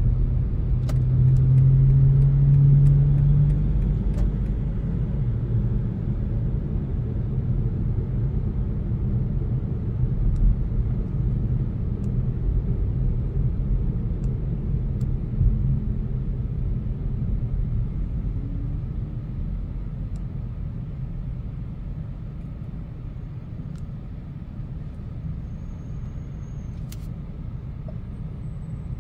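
BMW 520d's four-cylinder diesel and road rumble while driving. A steady engine hum is strongest in the first few seconds, then the overall sound gradually quietens toward the end.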